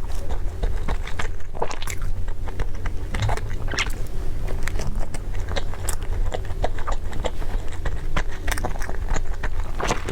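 Close-miked eating: a person biting and chewing food, with many short, irregular mouth clicks and smacks over a steady low hum.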